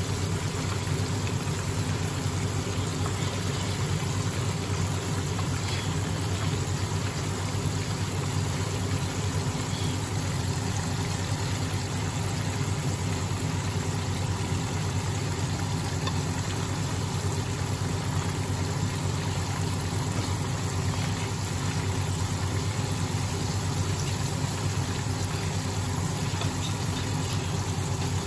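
Chicken karaage deep-frying in oil, a steady sizzle, over a steady low hum.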